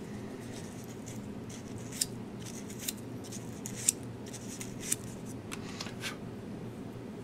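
Sharp little clicks and snips from a small hand tool working on wire leads, about five distinct ones roughly a second apart, over a steady low hum.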